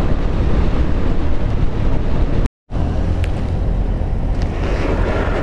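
Wind rushing over the microphone of a moving Bajaj Dominar 400 motorcycle, with the bike running underneath as a steady low rumble. The sound cuts out for a split second about two and a half seconds in, then carries on.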